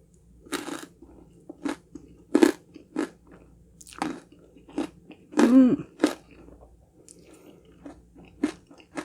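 Close-miked chewing of honeycomb-toffee crunch cake: a dozen or so sharp, irregular crunches as the brittle honeycomb pieces break between the teeth.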